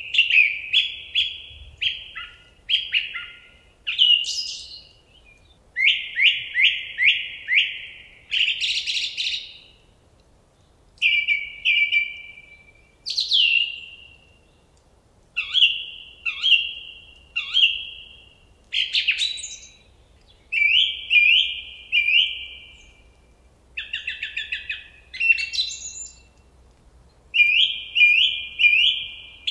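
A songbird singing short, repeated phrases of quick downward-slurred notes, one phrase every second or two, with brief pauses between them.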